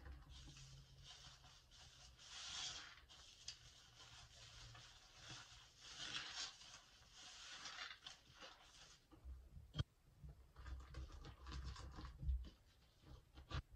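Soapy sponge being squeezed and kneaded in thick lather: soft wet squelching and the crackle of foam bubbles, swelling with each squeeze. Near the end, hands swishing in the soapy sink water, with a few small knocks and clicks.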